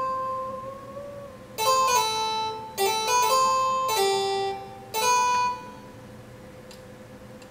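Harpsichord voice of a Roland SC-55 MIDI sound module, played through a small speaker by an Altura MIDI theremin: a held note bends slightly upward about a second in, then about seven plucked notes jump between pitches. The notes die away about two seconds before the end.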